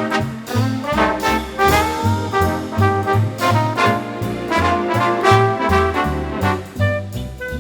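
Swing-style jazz with brass instruments playing the melody over a walking bass line.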